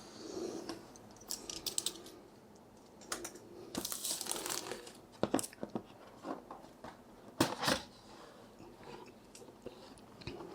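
A product box and its packaging being opened by hand: scattered rustling, crinkling and tearing with sharp clicks and knocks, the loudest about seven and a half seconds in.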